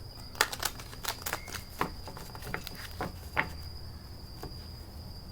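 Irregular light clicks and taps, about a dozen scattered over a few seconds, typical of tarot cards being handled and laid down, over a steady high-pitched whine.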